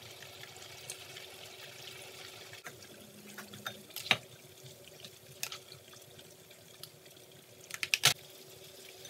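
Faint sizzling from a frying pan of cauliflower fried rice, with a spatula knocking and scraping against the pan and plate: single taps about four and five and a half seconds in, and a quick run of taps near the end as the rice is scooped out.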